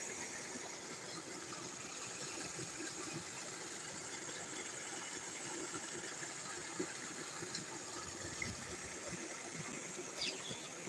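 Steady rush of water pouring from an outlet into a muddy canal, with a couple of faint clicks.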